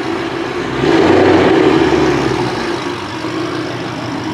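A car's engine idling, its steady hum swelling about a second in and then easing a little.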